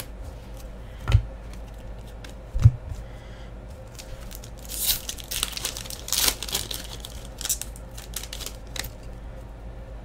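Foil wrapper of a 2015-16 Upper Deck Fleer Showcase hockey hobby pack being torn open and crinkled, a few seconds in, with light ticks after it as the cards come out. Before that, two short dull knocks.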